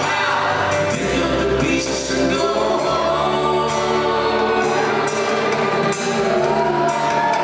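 Live band performance with singing, heard from far back in a large hall. Acoustic guitars, a bass line of held notes and light percussion play under a vocal line.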